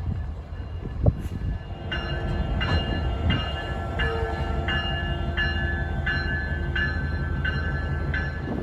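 Canadian Pacific diesel locomotive's bell ringing in steady strokes, about one every 0.6 s, starting about two seconds in, over the low rumble of the locomotive. There is a single knock about a second in.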